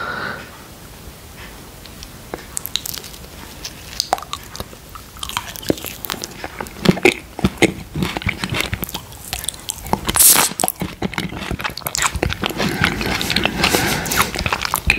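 Close-miked eating sounds of mango quark dessert with coconut flakes: wet lip smacks and chewing, sparse at first and much busier from about five seconds in.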